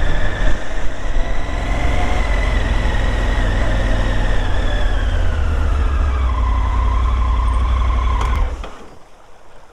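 Motorcycle engine running on the move, with a heavy low rumble and a steady whine that falls in pitch as the bike slows. The sound drops away abruptly about eight and a half seconds in, leaving a quiet hiss.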